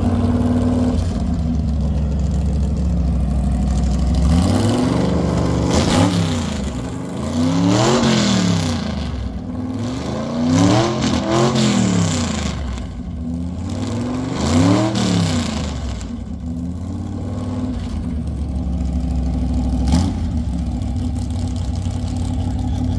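A car engine idling, then revved up and let fall back several times in quick succession before settling to idle again.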